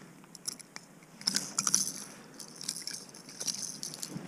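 Metal clinking and jangling of a rattle bait's treble hooks against fishing pliers as they are worked loose from a small northern pike's mouth. It comes in quick clusters of clicks, loudest about a second and a half in and again around three seconds.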